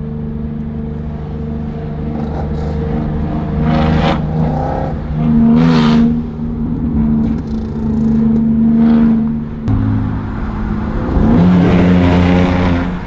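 Straight-piped Holden Commodore SV6's V6 exhaust, heard from inside the cabin while driving. It swells and eases off in several bursts of throttle, with a rising rev about eleven seconds in.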